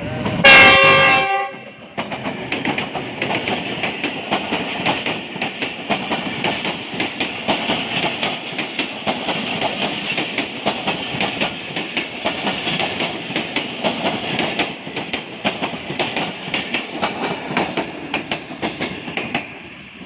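GE U20 diesel locomotive's horn sounds one loud blast of about a second. Then a train of passenger coaches passes close by, its wheels clattering steadily over the rail joints, and the clatter falls away just before the end as the last coach goes past.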